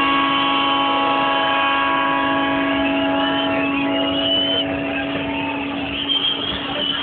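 Fans' horns held in long steady notes over the stadium crowd's noise, several pitches sounding together as a chord. The higher notes drop out about halfway through while the lower ones carry on, with a few brief whistles above.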